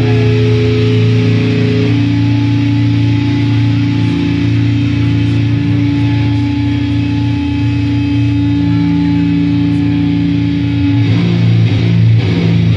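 Slow, heavy doom/sludge metal played live and recorded off the mixing desk: distorted electric guitars and bass hold long sustained chords, moving to a new chord about two seconds in and again near eleven seconds.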